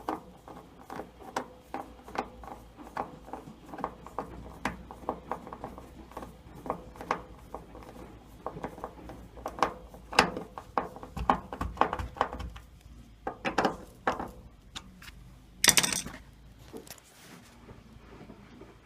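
Screwdriver driving a screw into a tumble dryer's door hinge: a run of small clicks and taps, about three a second at first, then irregular louder knocks, and one sharp clack about three-quarters of the way through.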